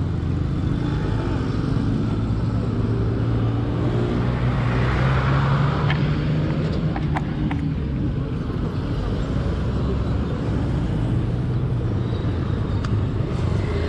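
Motorcycle engine idling steadily, with traffic noise swelling about four to six seconds in and a few light clicks just after.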